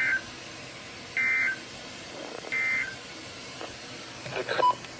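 NOAA Weather Radio SAME data tones: three short, harsh two-tone digital bursts about 1.3 seconds apart. Their shortness fits the end-of-message code that closes a broadcast warning. A brief noisy blip follows about four and a half seconds in.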